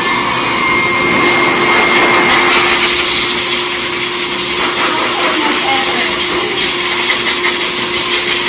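Dog grooming dryer blowing air through its hose and nozzle onto a dog's coat: a loud, steady rush of air with a faint steady hum and whine in it.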